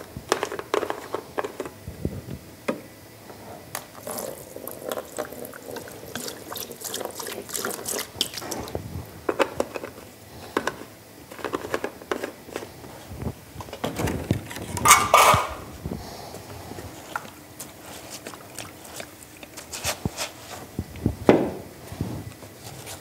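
A plastic canister being handled, its cap worked open, and liquid primer poured out, with scattered clicks and knocks of the plastic. There is one louder splash-like burst about two-thirds of the way through.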